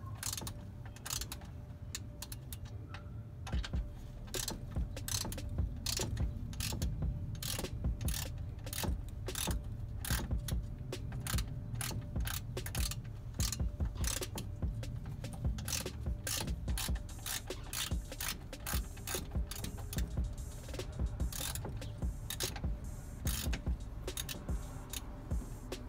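Socket ratchet clicking in repeated runs of quick strokes as it works the oil-pan drain plug of a BMW 128i; the plug is stuck and not coming off.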